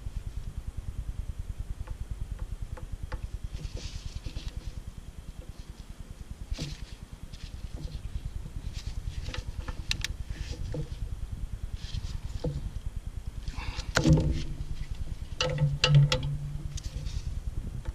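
Small metal clicks and clinks of a wrench and feeler gauge against the rocker arms and adjuster lock nuts of a New Holland TS115A's straight-six diesel during a valve lash adjustment, with two louder clanks near the end, over a steady low rumble.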